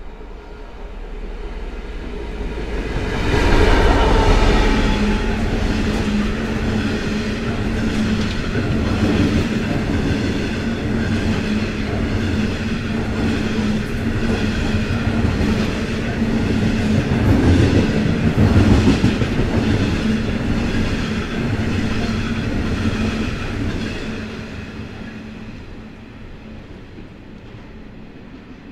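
Diesel-hauled freight train passing: the locomotive goes by loudest about four seconds in, then a long rake of wagons rolls past with a steady, regular clatter of wheels on the rails, fading away near the end.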